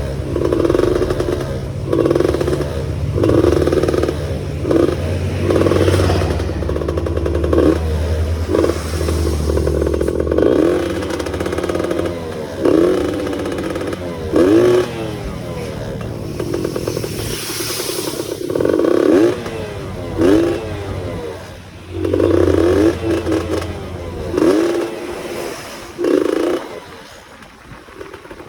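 Yamaha F1ZR two-stroke underbone motorcycle being ridden, tuned for a 'ngorok' (snoring) exhaust note. Its engine note rises and falls in repeated surges about every second or two over a steady low drone, and fades near the end.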